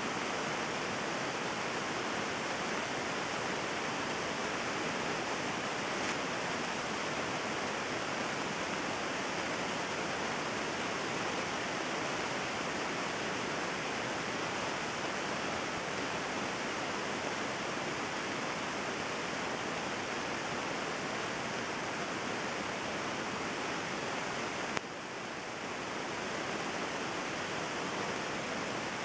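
Heavy thunderstorm downpour: a steady, dense hiss of rain. A sharp click comes near the end, after which the hiss drops briefly and builds back.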